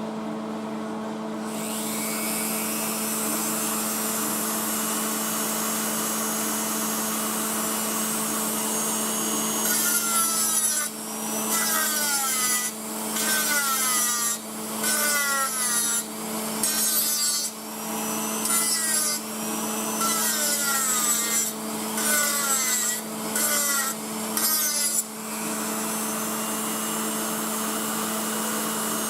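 A power tool starts up about a second and a half in, whining up in pitch. From about ten seconds in it is worked in repeated strokes, roughly one a second, each pulling its pitch down as it loads up, until about twenty-five seconds. A steady hum runs underneath.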